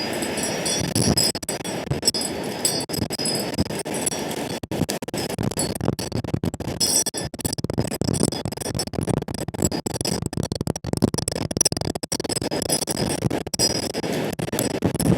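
Wind buffeting the microphone in uneven gusts, with short, high tinkling tones sounding repeatedly above it.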